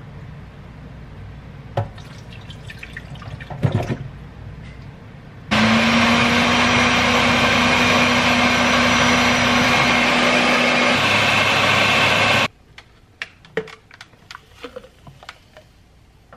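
A Ninja countertop blender switches on suddenly and runs at one steady speed for about seven seconds, blending a fruit smoothie of orange juice, berries and ice, then cuts off abruptly. Before it starts there are a couple of knocks as the blender jar is handled.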